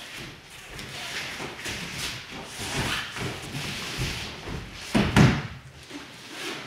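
Bodies moving on foam puzzle mats during an aikido ikkyou takedown: the rustle of cotton practice uniforms and bare feet shifting, then a heavy thump about five seconds in as the partner lands face-down on the mat and is pinned.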